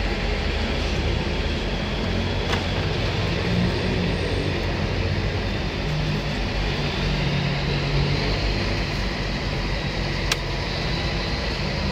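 Steady rumble of road traffic and nearby vehicle engines, with two faint knocks.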